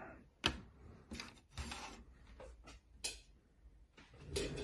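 Hollow 3D-printed plastic case halves clicking and knocking as they are handled and set down on a cutting mat: a handful of short sharp knocks, the sharpest about half a second in and another about three seconds in.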